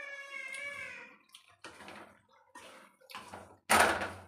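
A wooden spatula stirring and scraping cooking vegetables in an aluminium kadhai: a few short scrapes, the loudest about three and a half seconds in. At the start, a long drawn-out cat meow trails off.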